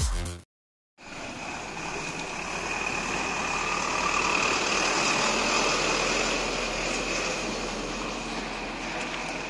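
Tata light truck's diesel engine idling steadily, heard close up, beginning about a second in; a steady high tone runs over it.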